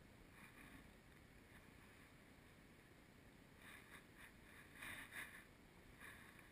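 Near silence: faint outdoor background with a few faint, brief noises.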